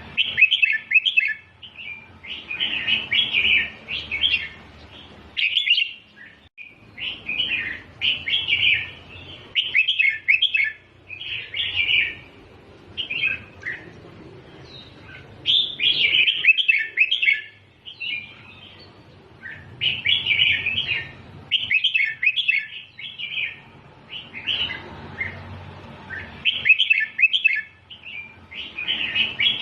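Red-whiskered bulbul singing: a string of short, quick song phrases, each a second or two long, with brief pauses between them.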